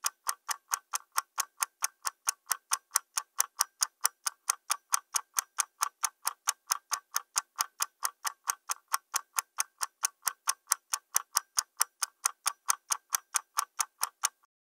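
Clock-ticking sound effect: an even, rapid tick at about four ticks a second, marking elapsed time on a running timer, that cuts off suddenly near the end.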